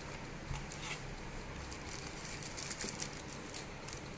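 Soft crinkling of a clear plastic bag wrapped around a cardboard box as it is handled and turned over, in scattered short rustles.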